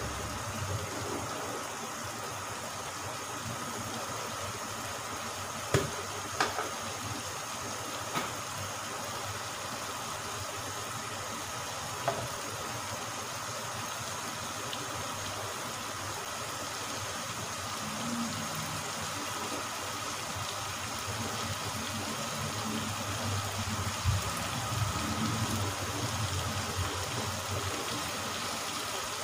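Kofta curry simmering in a frying pan as its gravy cooks down: a steady bubbling hiss with a few sharp pops.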